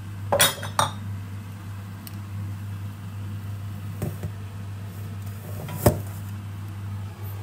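A glass oil bottle set down on the worktop with a few quick clinks, over a steady low electrical hum from the kitchen. A single sharp knock about six seconds in is the loudest sound.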